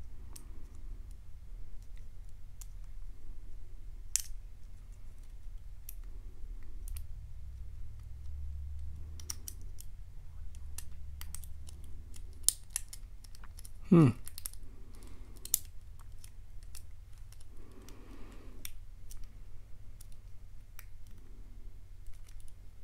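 Irregular small metal clicks and scratches of a lock pick and tension wrench working the pin stacks of a Kwikset lock cylinder held in a false set. About two-thirds of the way through, one short, loud sound slides steeply down in pitch.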